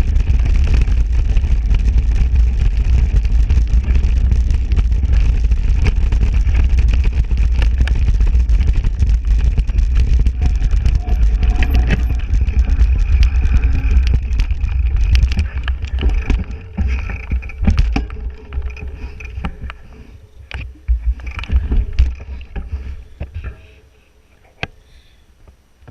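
Wind buffeting the microphone and tyres rumbling over rough ground on a fast mountain-bike descent. The rumble fades over the last third as the bike slows, leaving scattered knocks and rattles of the bike over bumps.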